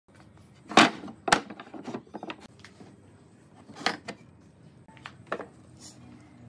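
Wooden boards being set down and knocked against a wooden tabletop. A loud knock comes about a second in, followed by a run of smaller clatters, then single knocks near four seconds and just after five.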